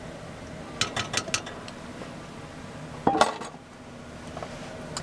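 A metal utensil clinking and scraping against a cast iron pot while batter is spread. There are several quick light clinks about a second in, then a louder clank that rings briefly about three seconds in.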